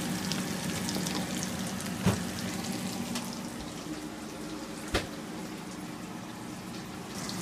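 Oil sizzling and crackling steadily in a skillet as folded tortillas stuffed with mashed potato fry. Two sharp clicks, about two and five seconds in, stand out over it, the second the louder.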